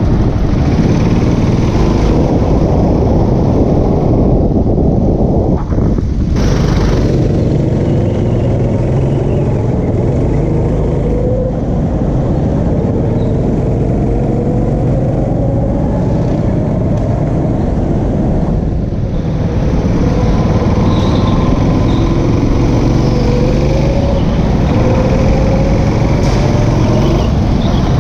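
Go-kart running hard on an indoor track, heard from on board: a steady loud rumble with a fainter whine that rises and falls in pitch as the kart speeds up and slows for corners.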